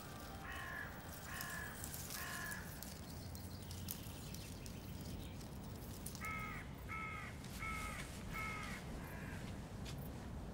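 A crow cawing: three harsh caws in the first few seconds, then a run of five more starting about six seconds in. Under them is a steady low outdoor rumble.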